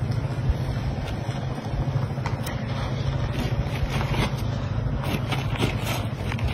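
A steady low rumble throughout, with short rustles and scrapes of clothing and boots as someone dresses.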